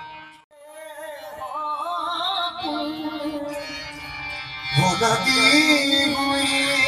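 Live qawwali: a singer's wavering, ornamented line over sustained harmonium chords. The music cuts in after a brief gap and grows fuller and louder about five seconds in.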